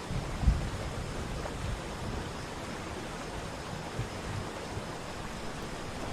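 Waterfall water rushing in a steady, even roar, with low rumbling buffets of wind on the microphone, the strongest about half a second in.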